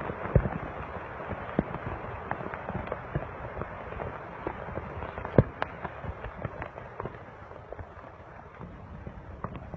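Volcán de Fuego erupting: a continuous low rumble with many irregular sharp cracks and pops. The loudest crack comes a little past halfway.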